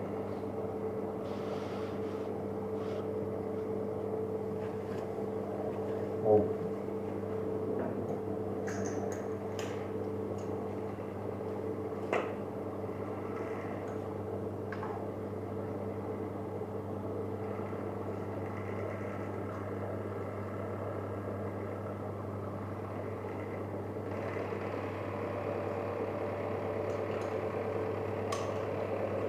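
A machine running with a steady hum in a workshop, with a sharp knock about six seconds in and a smaller one about twelve seconds in. The hum grows a little fuller about three-quarters of the way through.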